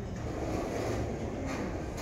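Sliding touchscreen carriage rolling along its rail, a steady low rumble with a faint click about one and a half seconds in.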